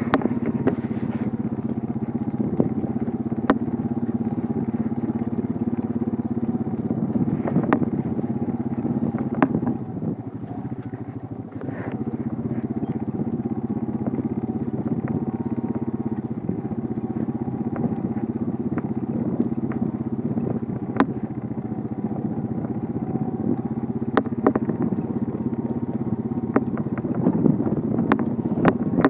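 A motor running steadily with a constant hum, dipping briefly about ten seconds in, with scattered sharp clicks and knocks over it.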